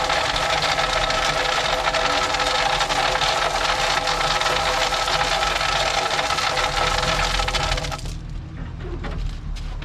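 Engine of a track maintenance machine running steadily with a fast mechanical rattle. About eight seconds in, the rattle and the higher sound drop away, leaving a quieter low engine rumble.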